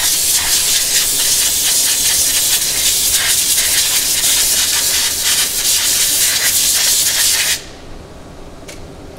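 Compressed-air blow gun blasting a loud, continuous hiss that cuts off suddenly about seven and a half seconds in.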